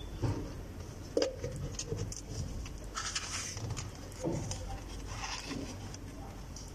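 Soft handling noises of a spare battery being pushed into a plastic scanner charging cradle and its power adapter and cable being moved, with a small plastic knock about a second in, a brief scrape around three seconds in and another knock a little after four seconds.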